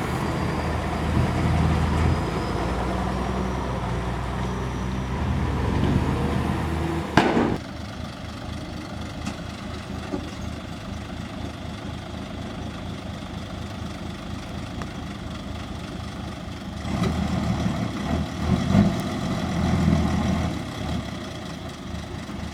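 Heavy diesel machinery running: a loud, steady engine for the first seven seconds, then a sudden sharp sound, after which the engine is quieter. It grows louder again for a few seconds near the end.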